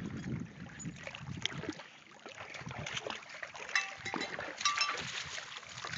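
Small bells jingling in short bursts from about four seconds in, each ring holding a clear steady pitch. Before that, a low rumbling noise on the microphone for the first second or two.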